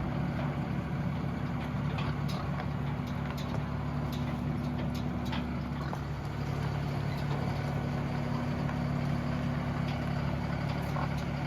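A vehicle engine idling steadily, with a few light clicks and knocks scattered over it.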